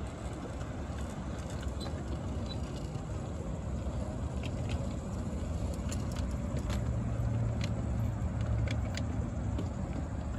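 Miniature ride-on railway train: a small diesel-outline locomotive hauling loaded passenger trucks past at low speed. A steady low rumble grows louder, with a low hum coming in around the middle as it passes closest, and scattered sharp clicks.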